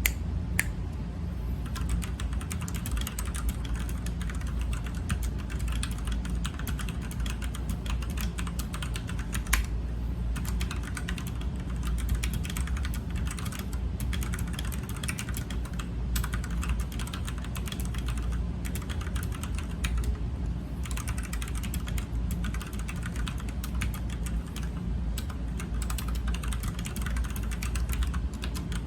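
Typing on an Ajazz K680T mechanical keyboard with red linear switches (Chinese clones of Gateron switches): a continuous, irregular run of quick key clicks, with a steady low hum underneath.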